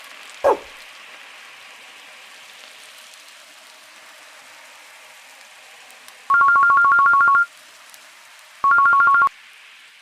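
A telephone ringing twice with a fast electronic two-tone trill, the second ring shorter, over a steady hiss. A short, sharp falling blip comes about half a second in.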